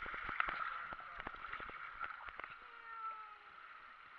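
River water rushing and splashing right at the raft's side, with a quick run of knocks and splashes in the first two and a half seconds that then eases to a steadier rush.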